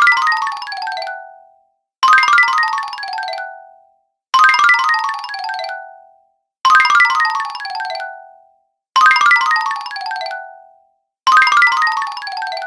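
Cartoon 'fail' sound effect: a quick falling run of bright, bell-like notes, repeated about every two and a third seconds, six times, each dying away before the next.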